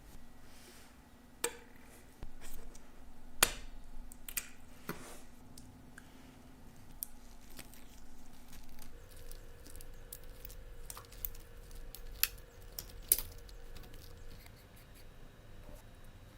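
Watchmaker's small metal tools clicking and tapping against watch parts: a dozen or so scattered sharp clicks, the loudest about three and a half seconds in and near the end, over a faint steady hum.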